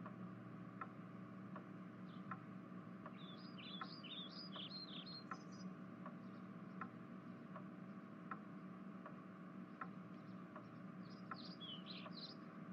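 Faint, regular ticking, about four ticks every three seconds, under a low steady hum. Small birds chirp in short bursts a few seconds in and again near the end.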